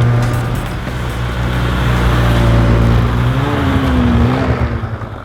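Snowmobile engine running steadily under way, its pitch wavering about three and a half seconds in before the sound drops away near the end.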